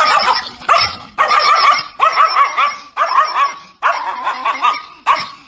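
Chihuahua barking in a rapid, continuing string of high, yappy barks.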